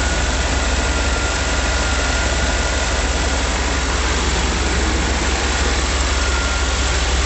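Chevrolet 350 cubic-inch (5.7 L) small-block V8 idling low, slow and steady, with a faint steady high-pitched whine over the rumble. The slow idle is the sign that its earlier fast-idle problem is just about cured.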